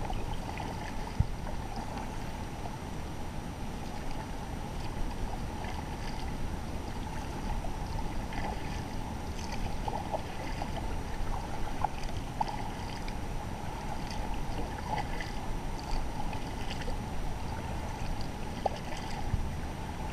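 Double-bladed kayak paddle stroking through calm water: the blades dip and pull with small splashes and drips, over a steady low rush of water and air around the kayak.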